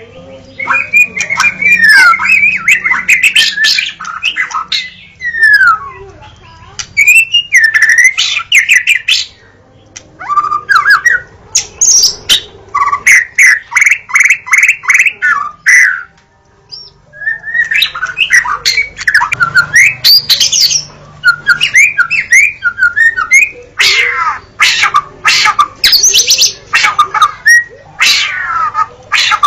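White-rumped shama (murai batu) singing a loud, varied song. It mixes whistled, gliding phrases with a fast run of repeated notes and harsh chattering notes, with one short pause about halfway through.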